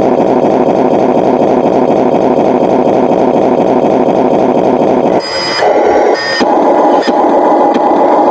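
Remote-control truck running: a loud, steady buzzing mechanical noise with a fine even ripple, which breaks off briefly about five seconds in and then resumes.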